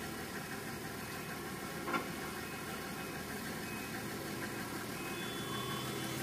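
An engine running steadily, with a single sharp click about two seconds in.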